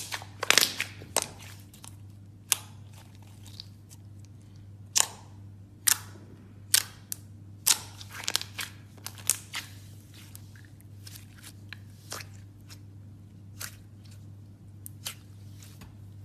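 Slime being pressed and stretched by hand, giving irregular sharp clicks and pops, most of them in the first half, over a steady low hum.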